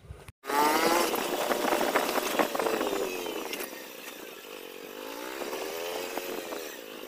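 A small engine running with a high, buzzing drone. It starts abruptly about half a second in, is loudest at first, and its pitch wavers slowly up and down.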